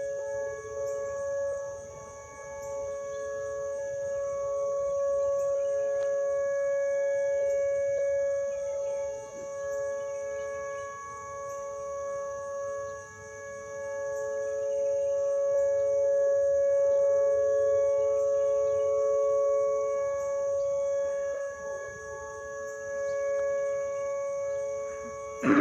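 Outdoor tornado warning sirens sounding a steady tone during a monthly test, two slightly different pitches held together. The sound slowly swells and fades.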